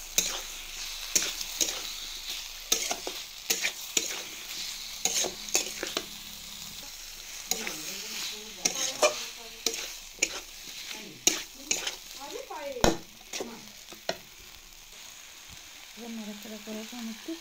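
Vegetables sizzling as they are stir-fried in a thick spice paste in a wok, while a metal spatula stirs and tosses them to coat them in the masala, scraping and knocking against the pan in frequent sharp clicks.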